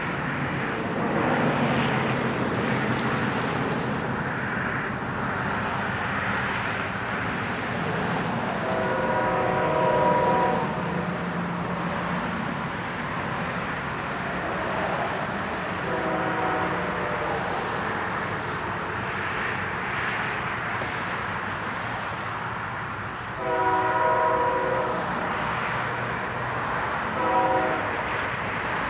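CSX freight diesel locomotive approaching with its engines rumbling steadily, sounding its multi-tone air horn four times: three longer blasts about seven seconds apart, then a short blast near the end.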